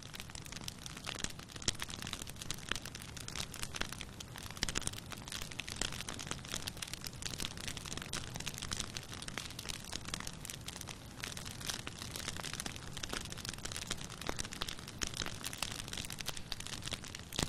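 Campfire burning: wood crackling in many irregular sharp snaps over a low, steady rush of the flames.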